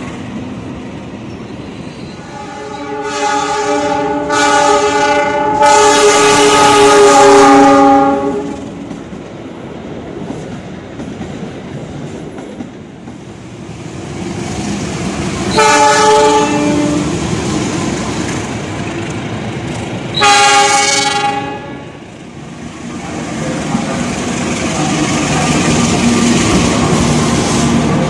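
KAI diesel-electric locomotive horns sounding over the rumble of passing trains: three blasts about 3 to 8 seconds in, then a short blast near 16 seconds and another near 21 seconds.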